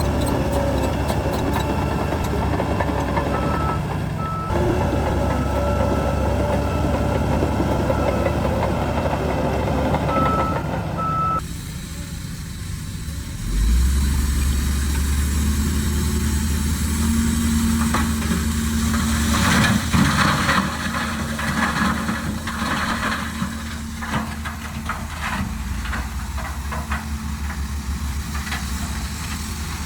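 Heavy diesel earth-moving machinery running steadily. The sound changes abruptly about eleven seconds in, then settles into a deeper steady drone. A stretch of rattling and clanking comes later.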